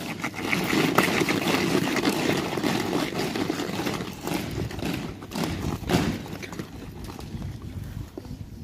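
Horses' hooves clip-clopping on a hard road, a dense run of hoofbeats loudest through the first five seconds or so and fading away after about six seconds.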